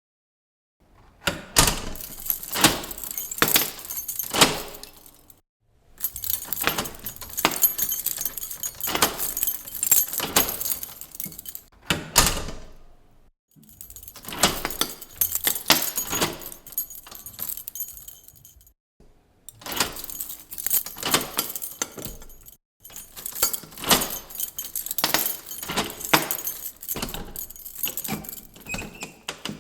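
Keys jangling and a key turning in a door lock, five separate times with short gaps between. Each take is a run of metallic rattles and clicks.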